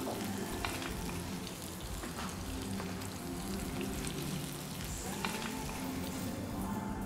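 Canned corned beef sizzling as it fries in a ceramic frying pan, with a few brief scrapes of a spatula breaking it up.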